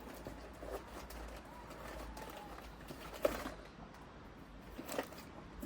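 Pigeon cooing in the background, with a few faint clicks and knocks of small items being handled.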